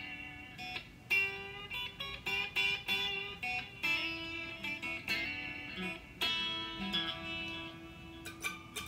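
Solid-body electric guitar played solo through an amplifier: a run of sharply picked single notes and chords, each left ringing, several notes a second.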